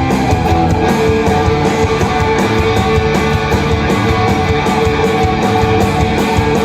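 Live punk rock band playing loud without vocals: distorted electric guitar, bass and drums with steady cymbal hits.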